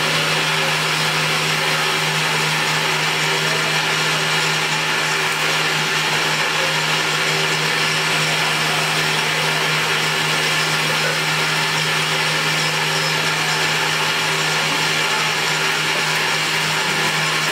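Small electric grain mill running steadily while grain is poured into its hopper: a constant motor hum under an even grinding hiss.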